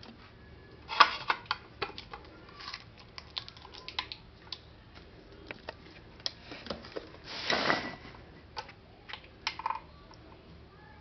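Scattered clicks and small handling knocks, then, about seven and a half seconds in, a hiss lasting under a second from an aerosol body spray can being sprayed into the air.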